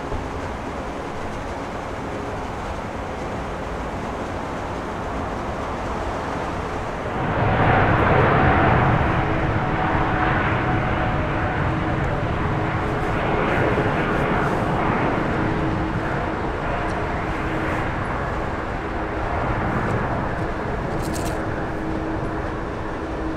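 Airbus A350-900's Rolls-Royce Trent XWB jet engines: a steady rumble that swells sharply about seven seconds in and stays loud, easing only slowly, with a faint steady hum in it.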